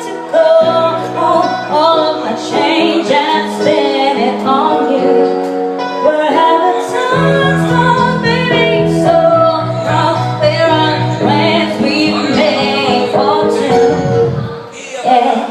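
A woman singing a pop song over an instrumental backing track, with a deeper bass part coming in about seven seconds in.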